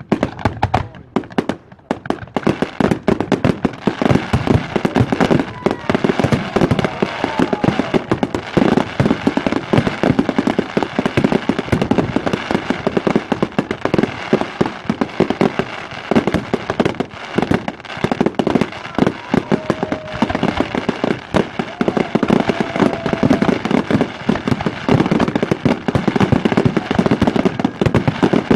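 Fireworks display in a dense barrage: a continuous rattle of bangs and crackles that builds up over the first couple of seconds, with a few brief whistling tones among them.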